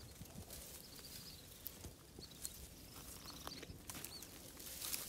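Dry twigs and branches rustling and snapping as a small monkey scrambles through thorny brush: scattered light cracks and crackles, with a few faint high chirps.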